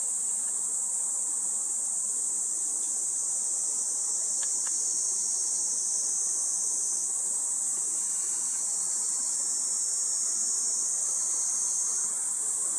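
Continuous high-pitched insect chorus, a steady shrill buzzing drone whose pitch shifts slightly about seven seconds in and again near the end.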